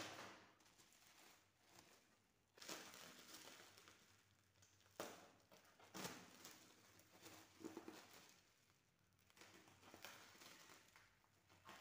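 Faint crinkling and rustling of plastic bubble wrap as it is handled and pulled open, with a few sharper crackles.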